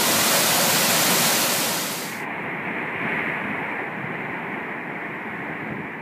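Steady rushing of a waterfall. About two seconds in, the sound turns suddenly duller and a little quieter, losing its hiss, and then carries on evenly.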